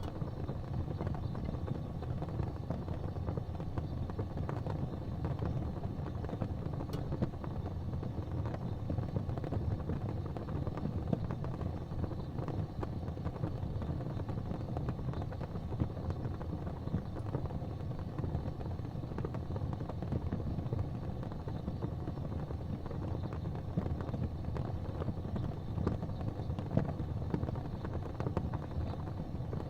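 Fireplace fire burning with a steady low rumbling rush and faint scattered crackles.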